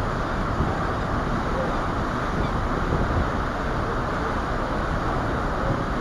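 Steady wind rushing over the microphone with the low rumble of a ferry under way and water washing past the hull.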